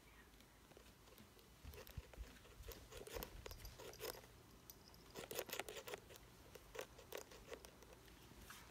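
Faint scratchy rustling and clicking of a phone being handled and moved about, starting about two seconds in and coming in clusters, busiest in the middle.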